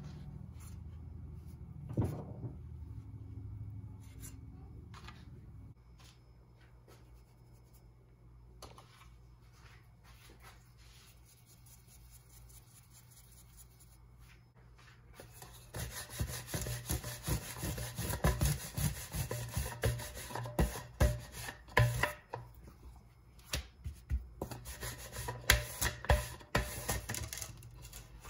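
Rolling pin rolling out a ball of paratha dough on a floured granite countertop: a fast, steady run of rubbing and knocking strokes that starts about halfway through and grows loud. Earlier there is one sharp knock about two seconds in.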